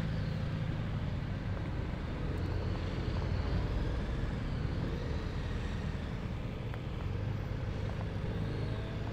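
BMW R1200RT boxer-twin motorcycle engine running at low speed, with road and wind noise, as the bike turns in and rolls slowly.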